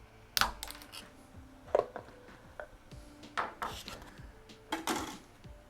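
Small 3D-printed plastic pieces clicking, snapping and scraping as they are worked free of the print raft by hand: several sharp clicks with short rustles between them.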